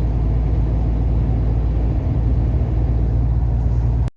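Volvo semi-truck's diesel engine running, a steady low rumble with road noise; it cuts off suddenly near the end.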